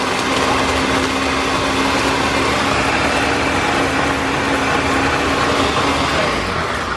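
Countertop blender running steadily at high speed, grinding fried chicken pieces in Pepsi into a thick liquid.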